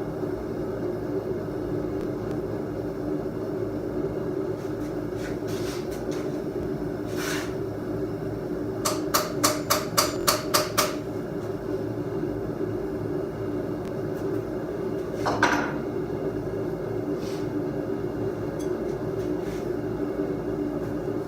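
A quick run of about eight hammer strikes on steel, about four a second, partway through, with a few single metallic knocks before and after. A steady machine hum runs underneath.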